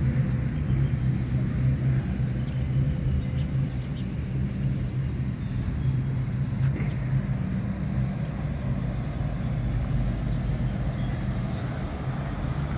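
Steady low rumble of a motor vehicle's engine running, unchanging in pitch throughout.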